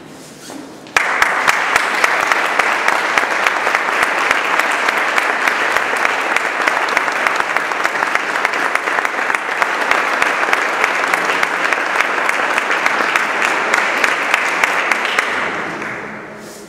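Audience applauding: a dense clapping that breaks out abruptly about a second in, holds steady and fades away near the end.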